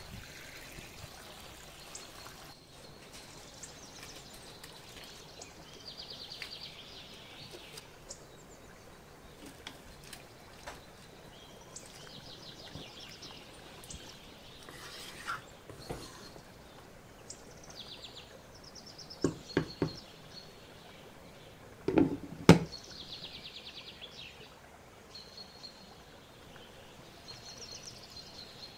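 A small bird chirping in short, rapid trills that come back every few seconds, over a low steady background hiss. About two-thirds of the way through come three quick sharp knocks, then two louder ones shortly after.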